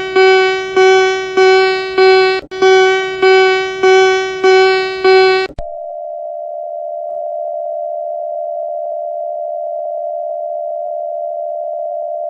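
Emergency-alert signal tones: a bright, pitched chime-like tone struck over and over, about every 0.6 s, stops abruptly about five and a half seconds in. A steady single-pitched alert tone takes over and holds unbroken.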